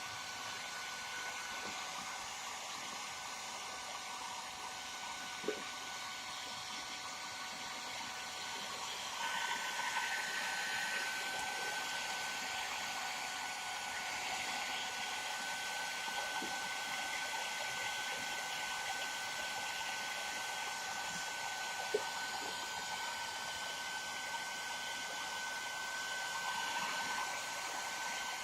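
Hairdryer blowing steadily with a thin motor whine, heating a motorcycle headlamp to soften the lens sealant so the lens can be pried off. It grows louder about nine seconds in, and two small knocks come through.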